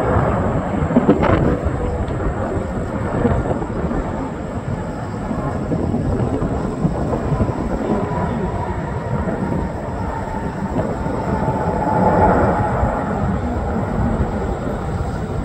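Jet airliner on landing approach, its engines giving a steady low rumble with a faint whine that swells about twelve seconds in.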